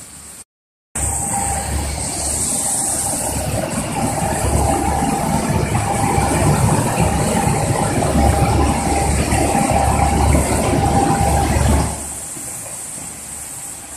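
Steel plate shot blasting machine running: a loud, dense mechanical din with a pulsing low hum. It starts after a brief gap about a second in and drops off suddenly near the end.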